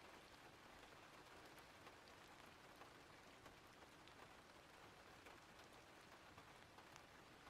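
Faint, steady rain ambience: an even hiss of rainfall with scattered light drop ticks.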